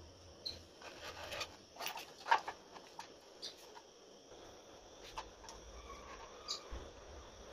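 Scattered light clicks and knocks of objects being handled, the loudest about two and a half seconds in.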